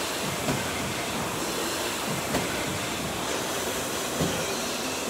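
Wall-ball reps with a 20-pound medicine ball: three soft thuds about two seconds apart, one for each rep, over a steady hiss.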